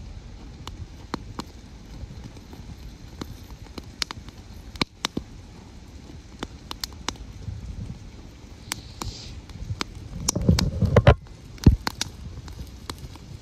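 Wood campfire crackling, with sharp pops and snaps at irregular intervals. About ten seconds in comes a louder low rumble with a quick cluster of pops.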